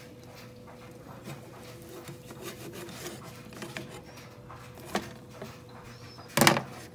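Light rubbing and scraping with scattered small clicks over a faint steady hum, then a short sharp knock near the end.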